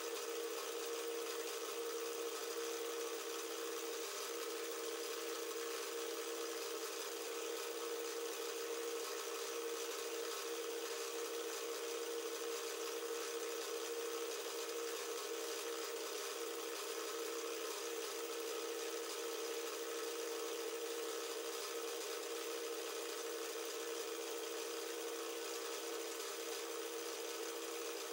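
BL250D bench metal lathe running with a steady two-note hum while a turning tool is fed along the outer diameter of a large round workpiece, skimming it smooth.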